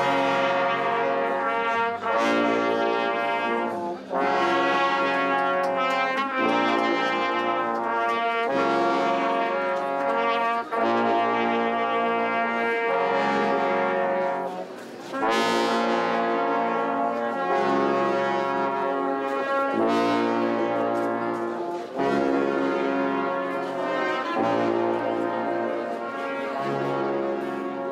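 Live brass ensemble of trumpets playing a slow tune in held chords, with short breaks between phrases about every two seconds.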